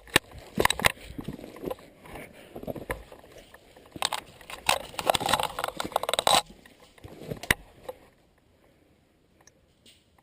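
Close rustling, scraping and sharp clicks, handling and movement noise right at the microphone, which stop about eight seconds in.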